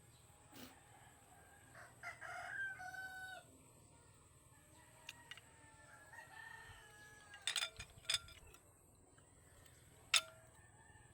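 A rooster crowing about two seconds in, then a fainter call around six seconds, with a few sharp clicks later on.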